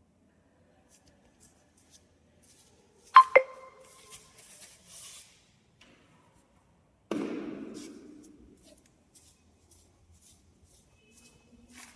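Metal tap fittings being handled during a basin mixer installation: two sharp clinks in quick succession that ring briefly, then a short scraping rush that fades, with light ticks and taps.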